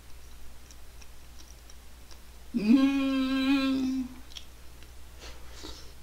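A woman's drawn-out 'mmm' hum of enjoyment while eating, scooping up briefly and then held on one pitch for about a second and a half, in the middle. Faint clicks of eating come before and after it.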